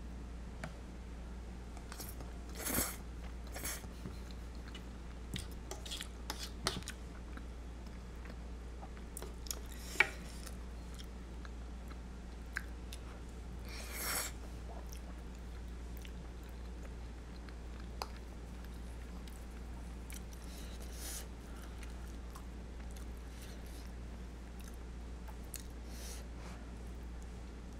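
Close-up eating sounds of spaghetti carbonara: quiet chewing with two louder slurps, about three seconds in and near the middle. A few sharp utensil clicks come through, the loudest about ten seconds in. A steady low hum runs underneath.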